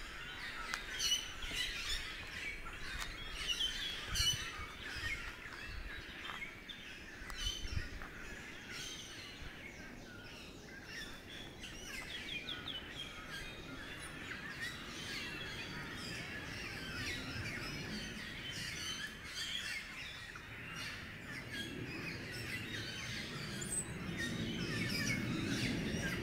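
Small birds chirping and twittering in quick repeated calls throughout, with a low rumble building near the end.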